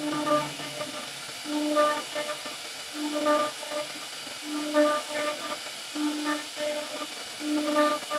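Steady hiss of a CNC router carving a wooden door panel, with a short pitched pattern of a few notes repeating about every 1.3 seconds.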